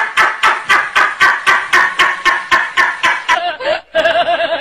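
A man's hearty laugh: a fast, even run of 'ha's, about four a second, which breaks off about three and a half seconds in. A wavering, warbling voice-like sound starts near the end.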